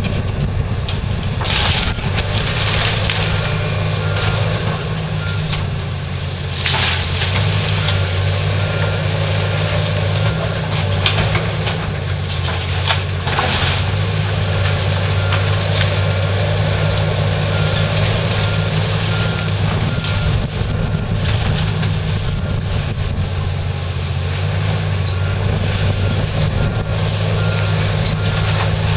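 Komatsu PC360LC hydraulic excavator's diesel engine running steadily under load as its bucket tears into a wood-frame house. Timber splinters and debris crashes come several times, loudest about a second and a half in, around seven seconds and around thirteen seconds.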